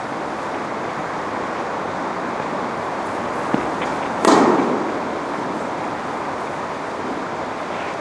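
A tennis racket hits the ball once about four seconds in: a sharp pop that rings on in the indoor hall, just after a lighter tap. A steady rushing noise runs underneath.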